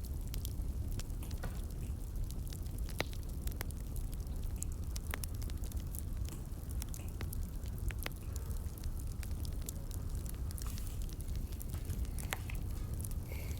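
Wood fire burning: irregular crackles and pops over a low, steady rumble.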